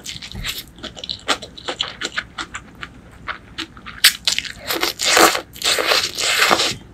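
Close-miked noodle eating: wet chewing and mouth clicks, then a sharp slurp about four seconds in and two long, loud slurps of soup-soaked noodles near the end.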